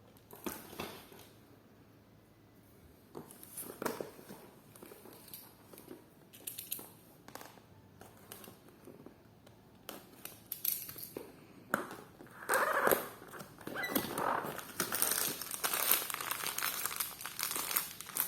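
Packaging crinkling and rustling as it is handled: scattered light rustles and clicks at first, then steadier, louder crinkling from about two-thirds of the way through.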